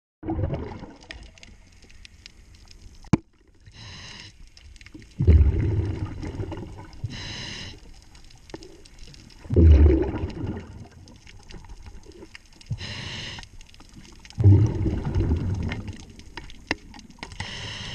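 A diver breathing through a regulator underwater: a hissing inhale, then a loud burst of exhaled bubbles, about every four to five seconds. One sharp knock about three seconds in.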